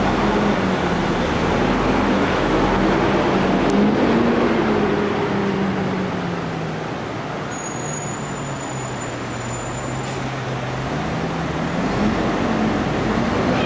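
Hyundai city bus's engine pulling away along the street: its pitch climbs slightly, drops to a low steady drone for a few seconds midway, then rises again near the end, over steady surrounding road traffic.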